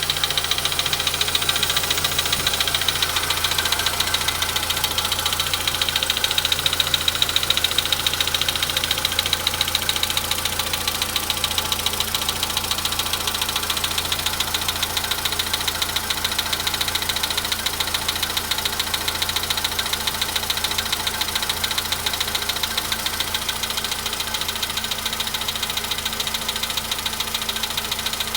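Volkswagen Polo Sedan engine idling after a cold start with a rapid, even knocking from inside the engine: the engine knock on cold that the owner is documenting at 93,000 km.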